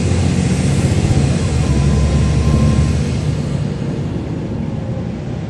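Caterpillar C13 diesel engine of a NABI 40-SFW transit bus, heard from the rear seats over the engine bay, pulling under power, then easing off and getting quieter from about three seconds in.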